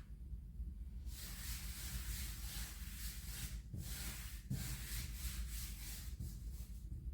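Dry rubbing strokes, two or three long ones of a second or more, with short breaks between them.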